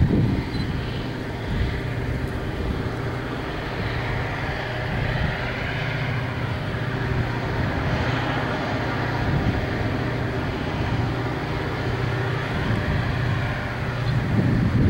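Diesel-electric freight locomotives running in the distance, a steady low drone with a haze of noise. Wind gusts hit the microphone at the start and again near the end.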